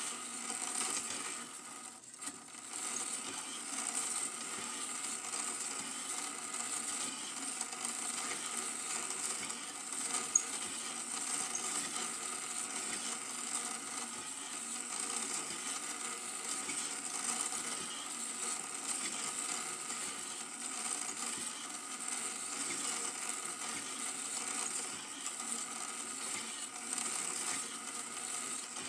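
Super 8 film projector running, a steady mechanical whir with a fine rapid ticking from the film-advance mechanism, and one sharp click about ten seconds in.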